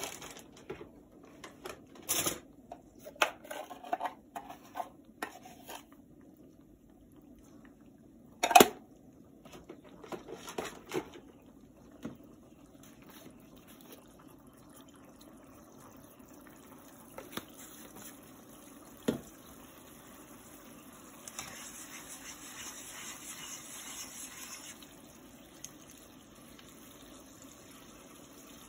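Water heating in a frying pan on the stove toward a simmer: a low steady hum, with a fizzing rush from about 21 to 25 seconds in. Several sharp knocks in the first twelve seconds, the loudest about eight and a half seconds in, and one more a little before 20 seconds.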